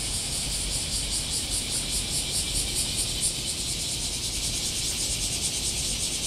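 Cicadas singing in a loud, high-pitched chorus that pulses about six or seven times a second, the pulses clearest in the first half.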